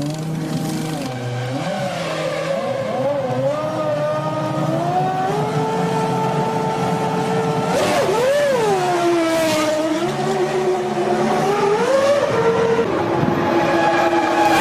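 Formula One V10 engines running, several at once, their pitches rising and falling as they rev, with a quick rev blip about eight seconds in.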